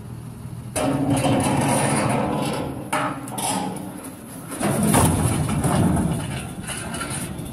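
Vehicle engine running, then loud crunching and banging starting about a second in, surging again about five seconds in before tapering off.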